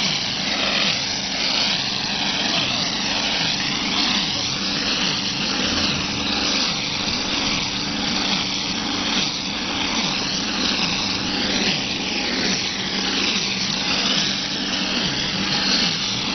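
Spray nozzle of an OHT38 hose-pump plastering machine spraying wet mortar onto a wall: a steady, loud rush of air and spattering mortar, with a steady low hum underneath.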